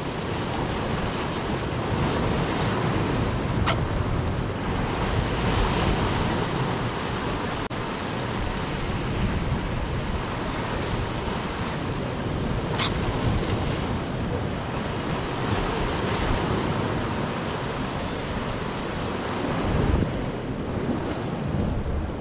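Sea waves surging and breaking against shore rocks, swelling and easing every few seconds, with wind rumbling on the microphone. Two brief sharp clicks about nine seconds apart.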